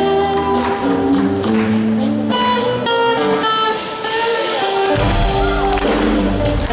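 A live rock band playing an instrumental passage led by guitar, with held melodic notes over the band. Bass comes in heavily about five seconds in.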